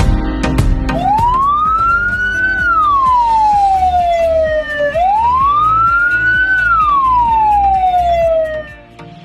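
Ambulance siren in a slow wail: two long cycles, each rising in pitch and then falling slowly over about four seconds, starting about a second in, with music underneath.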